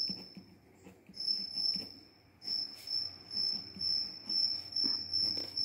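Cricket chirping: a steady high-pitched trill that pulses about twice a second, breaking off briefly twice in the first two seconds.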